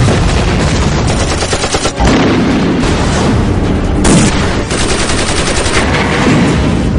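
Rapid automatic gunfire, shot after shot with no pause, with a louder burst about four seconds in.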